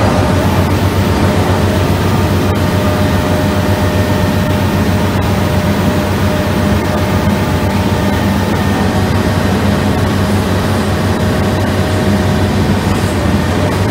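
Antraquip AQ6 hydraulic drum cutter on a Komatsu PC650 excavator boom cutting into shale and medium-hard limestone, over the excavator's engine and hydraulics: a loud, steady, low mechanical noise.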